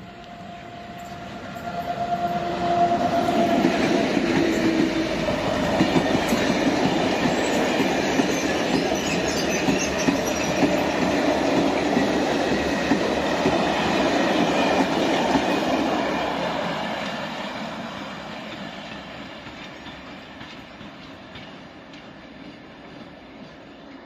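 Electric-hauled freight train of covered sliding-wall wagons rolling past, wheels running on the rails, loud for the first part and then fading slowly as it moves away. A steady whine sounds at the start and dies out about three seconds in.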